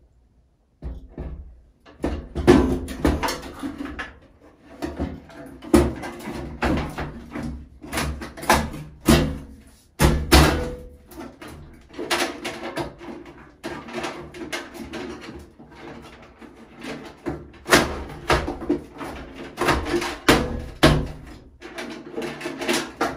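Medicine cabinet being handled and pushed into its wall recess: irregular knocks, bumps and clatter of the cabinet body against the wall opening, with lighter handling noise as the wiring inside is worked on.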